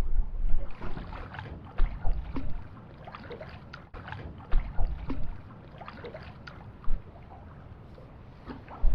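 Water splashing and slapping around a small boat, with irregular short knocks and splashes.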